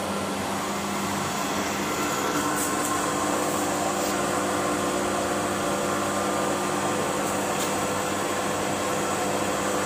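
Heat-shrink tunnel of a notebook shrink-wrapping machine running with a steady hum, its circulating fan and roller conveyor carrying a stack of notebooks through to shrink the film around them.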